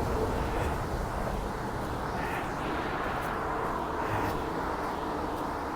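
Steady rumble and hiss of traffic on the I-81 interstate highway close by.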